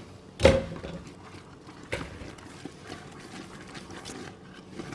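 Wooden spatula stirring caramel deglazed with cream in a large stainless steel pot, with a loud ringing knock against the pot about half a second in and a lighter knock at about two seconds.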